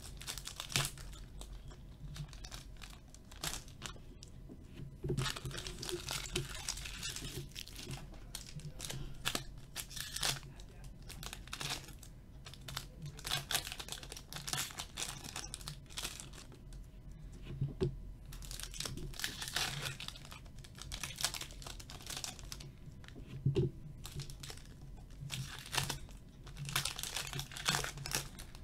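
Upper Deck Trilogy hockey card pack wrappers being slowly torn open by hand, crinkling and tearing in irregular bursts.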